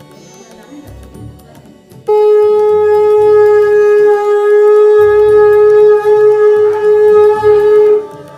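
Conch shell (shankh) blown in one long, loud, steady note that starts suddenly about two seconds in and holds for about six seconds, over quieter music with a low rhythmic beat.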